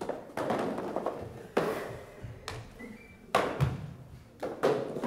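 Grocery items being dropped into a metal wire shopping cart: a sharp knock every second or so, each with a short rattle from the cart.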